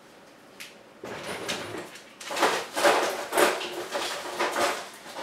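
Handling noise: a single click, then a run of rough scrapes and rustles that grows busier after about two seconds.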